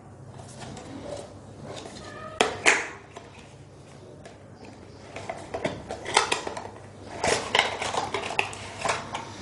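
Cardboard earphone box being opened by hand: the flap pulled free and the inner tray slid out, with scraping and rustling of card. One sharper scrape comes about two and a half seconds in, and a busier run of rustles from about five seconds on.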